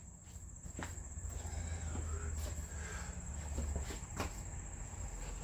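Quiet background with a steady high-pitched whine or chirring and a low hum, with a couple of faint knocks.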